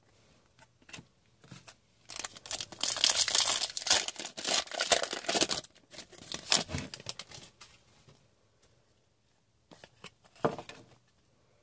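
A foil trading-card pack wrapper being torn open and crinkled by hand, a dense run of ripping and crackling for several seconds, with a few lighter crinkles and rustles before and after.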